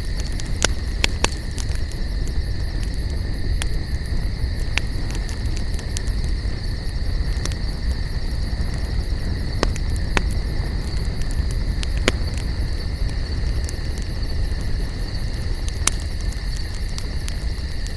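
Wood campfire burning, with irregular sharp crackles and pops over a low steady rumble of flame. A steady high insect trill runs underneath.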